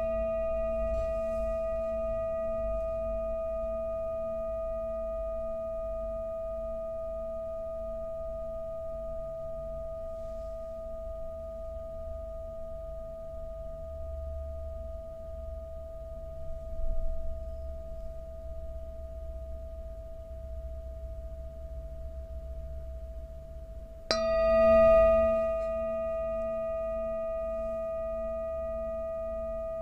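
Large metal singing bowl struck with a wooden mallet, ringing with one clear steady tone and fainter higher overtones that fade very slowly. It is struck again about 24 seconds in, and the ring swells briefly and then rings on.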